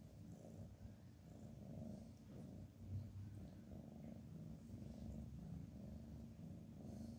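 Domestic cat purring faintly, a low rumble that swells and fades in a regular rhythm.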